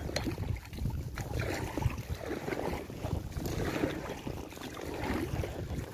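Kayak paddle strokes splashing and water swishing along the hull of an inflatable kayak, in an even rhythm of about one stroke a second.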